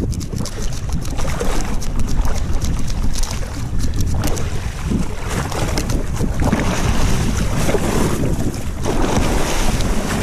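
Wind buffeting the microphone in a steady rumble over water sloshing against a boat's hull at sea, with crackling gusts in the first few seconds.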